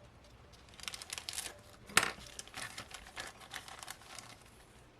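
Plastic kit bag crinkling as the clear parts are handled and taken out, with a sharp click about two seconds in.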